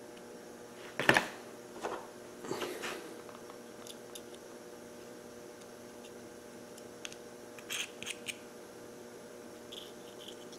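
A small pick scraping and clicking against an outboard fuel pump housing as gunk is cleaned out of it: a sharp knock about a second in, a short scratchy scrape, then a few light clicks. A faint steady hum runs underneath.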